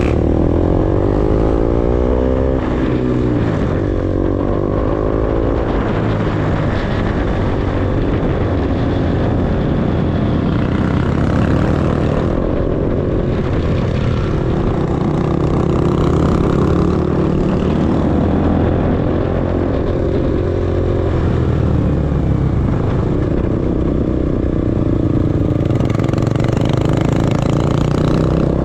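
KTM RC 200's single-cylinder engine running under way, its revs climbing over the first few seconds and then holding fairly steady, with wind rushing over the microphone.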